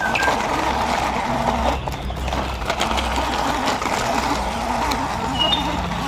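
Radio-controlled toy dump truck's electric drive motor and gearbox whining steadily as it drives loaded over dirt and grass, the pitch wavering with the load. A bird chirps briefly near the start and again near the end.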